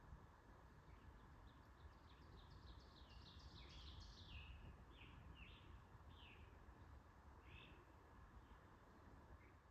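Faint woodland birdsong: a bird sings a quick run of falling notes a few seconds in, then a few separate chirps, over a low steady background hiss.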